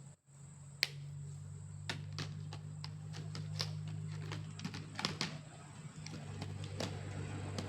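Scattered, irregular sharp clicks and taps, about a dozen, over a steady low hum.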